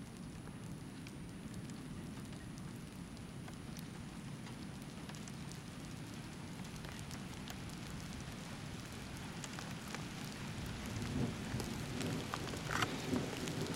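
Thunderstorm rain falling steadily, with scattered sharp taps; it grows louder over the last few seconds.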